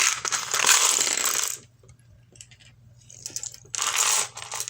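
Small plastic LEGO pieces rattling and clattering in two bouts, a longer one first and a shorter one about a second and a half later, as they are poured out and sifted by hand.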